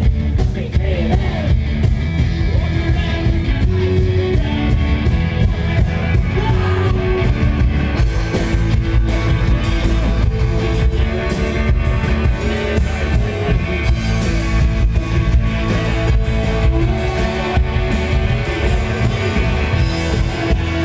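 Live rock band playing loud: electric guitars, bass and drums, with a man singing. The drum hits come through more strongly from about eight seconds in.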